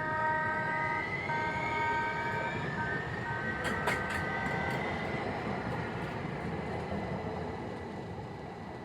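San Diego Trolley light-rail train running past and sounding its chord horn in a series of blasts: a long blast, a second long one, two short ones and a final long one. A rising motor whine that then levels off runs under the horn, with a few sharp clicks about four seconds in, and the rumble of the train slowly fades.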